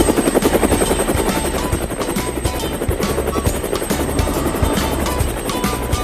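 A rapid, fluttering whir, like a rotor, over children's background music with a bass line.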